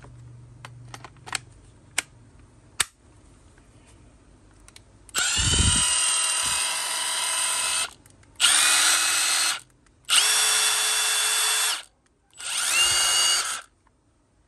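Milwaukee M18 Fuel 2853 impact driver's brushless motor run with no load in four separate trigger pulls: a high whine that climbs to speed at each start. The first run lasts about three seconds and the rest one to two. A few light plastic clicks come earlier as the tool is handled.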